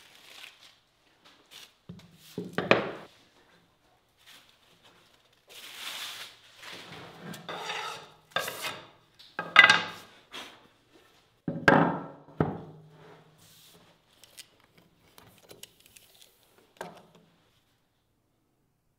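Wood being worked by hand on a workbench: a series of separate rubbing, scraping strokes a second or two apart, the loudest near the middle, followed by faint light taps near the end.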